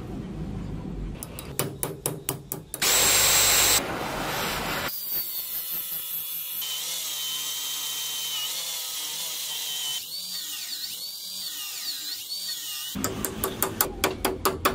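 A power tool working on rusted metal: a run of sharp clicks, a short loud rush, then a long steady motor whine whose pitch wavers as a wire wheel brush spins against the rusty part. It ends in a fast run of clicks.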